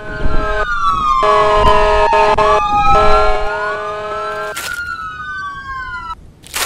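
A wailing, siren-like tone sliding down in pitch and then back up, over a steady held chord and a low rumble. The chord drops out about two-thirds of the way through, and the wail fades away near the end, with a couple of sharp clicks.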